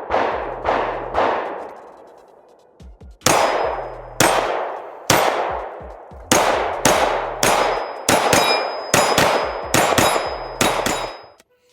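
9mm Glock 19 pistol fired in strings: three quick shots, a pause of about two seconds, then a long run of shots that comes faster toward the end. Each shot has a long ringing tail.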